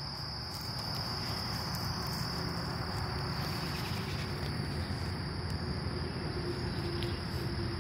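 Insects trilling steadily on one high pitch, over a low, even background hum.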